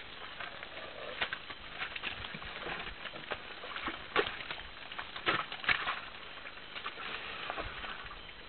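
Irregular wet slaps and squelches of mud as African forest elephants shift about in a mud wallow and the adult lies down in it, the loudest few coming a little past the middle.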